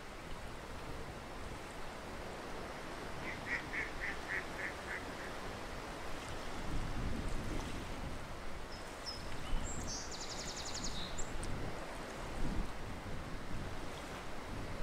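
Ducks calling over a steady background hiss: a quick series of about seven short calls a few seconds in, then a fast, high rattling call from another bird about ten seconds in, with a few low rumbles.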